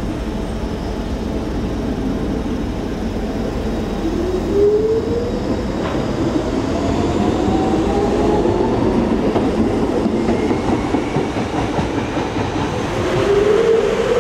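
Docklands Light Railway train pulling away, its traction motors whining higher and higher in pitch as it gathers speed, over the steady noise of wheels on the rails. A second train's whine starts rising near the end.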